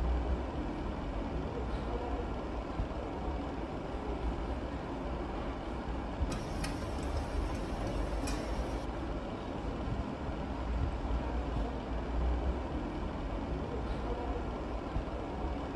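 Dishwashing at a stainless steel sink under a steady low rumble; about six seconds in, the tap runs for a couple of seconds, with a couple of clinks of dishes.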